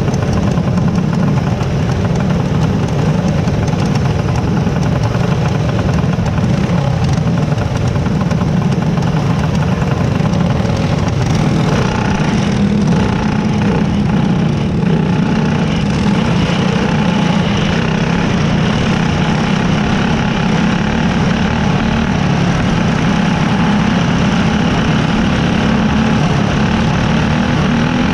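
Small dirt-track race car engines idling together on the starting grid, heard loud and close from the onboard car, with the engine note changing from about halfway through and rising slightly near the end as the cars begin to roll.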